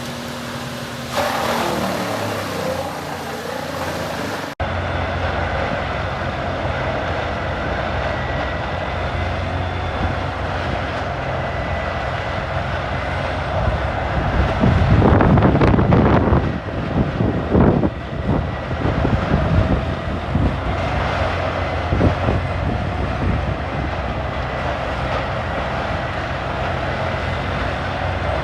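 Heavy industrial wood-chipping machine running steadily under its diesel engine. Louder, rough grinding surges come about halfway through as material is fed in, with smaller ones after.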